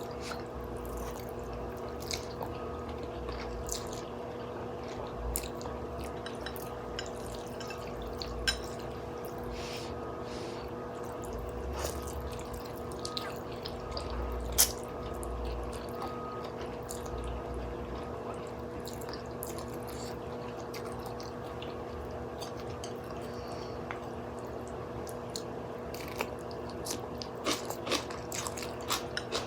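Quiet eating of noodle soup: scattered soft clicks and taps of utensils on the bowl and small liquid sounds over a steady low hum. The clicks come more often near the end.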